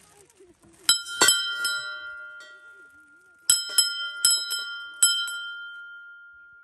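Small metal temple bells struck by hand: about three strikes about a second in, then a quicker run of about six strikes in the middle, each ringing on with a clear tone that slowly dies away.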